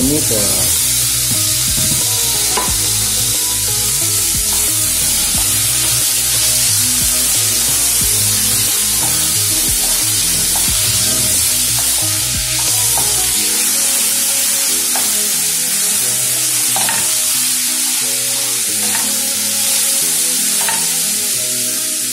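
Onion, garlic, ginger and tomato sizzling as they sauté in oil in a nonstick frying pan, stirred with a wooden spoon that knocks against the pan now and then.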